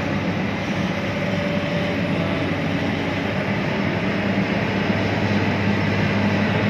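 Heavy diesel machinery running steadily: a constant low engine hum under an even noisy rush.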